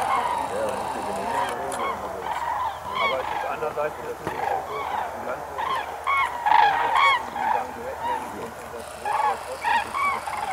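A flock of common cranes calling in flight: many overlapping calls at once, in a continuous chorus, with the loudest calls about six to seven seconds in.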